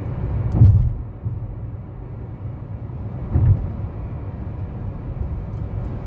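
Low, steady vehicle rumble with two heavier thumps, about a second in and again about three and a half seconds in.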